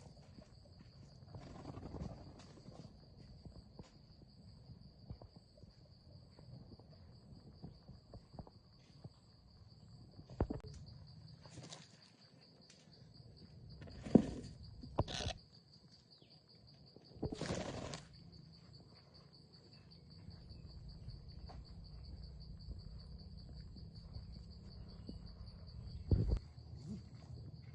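Insects droning steadily on one high, even pitch, with a few scattered knocks and rustles of handling, the sharpest about halfway through.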